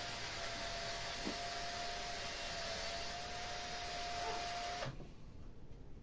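Small cordless drill running steadily with a constant whine, its bit boring a hole through the trunk of a Japanese maple bonsai for a thread graft. The motor stops about five seconds in.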